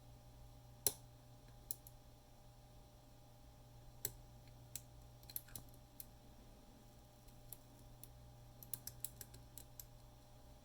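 Faint, irregular small clicks of a hook pick working the spring-loaded wafers of an Illinois Duo cabinet lock while they are being set, the loudest about a second in and a quick cluster near the end, over a steady low hum.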